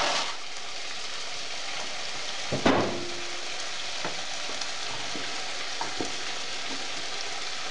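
Pot of water boiling with a steady hiss as dried farfalle pasta cooks in it. A sharp knock with a brief ring comes about two and a half seconds in, then a wooden spoon taps lightly against the pot while stirring the pasta.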